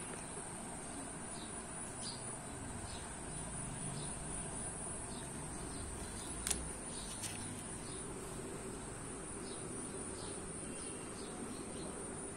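Steady high-pitched insect chirring, with faint short chirps every second or so and a single sharp click about six and a half seconds in.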